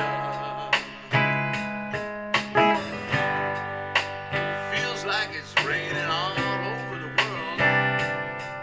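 Solo guitar played slowly in a blues/R&B style on a Telecaster-shaped acoustic-electric guitar: plucked chords and single notes, each attack ringing out and fading before the next.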